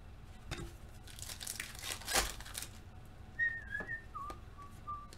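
Glossy trading cards rustling and sliding against each other as a stack is flipped through by hand. In the second half there is a soft whistle of two wavering notes, the second lower and longer.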